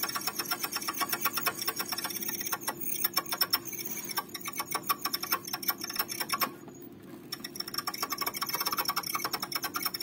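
Columbia GP-17 record player making a rapid clicking chatter, like a chicken clucking, as the platter turns. It dips briefly about six and a half seconds in. This is the fault noise, which the repairer puts down to a failing motor.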